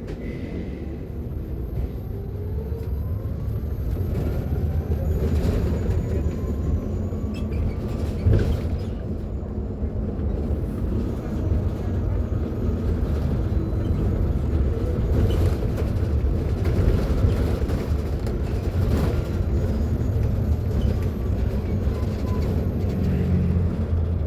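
Mercedes-Benz eO500U battery-electric city bus on the move: a faint electric-motor whine rising in pitch as it gathers speed, over a steady low road rumble, with occasional knocks and rattles from the body.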